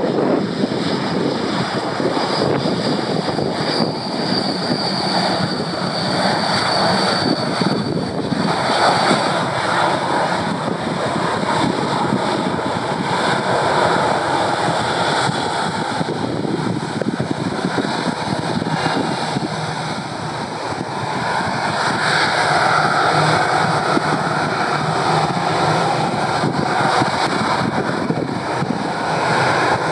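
Jet engines of an Airbus A321-211 airliner (CFM56 turbofans) running as it rolls out along the runway after touchdown, ground spoilers up. It is a steady, loud rush of jet noise, with a high whine over it for the first several seconds that fades by about a third of the way through.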